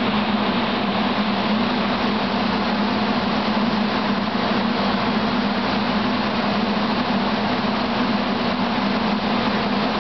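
Idling SEPTA electric commuter railcar's onboard equipment running: a steady low hum over a broad whirring hiss, unchanging throughout.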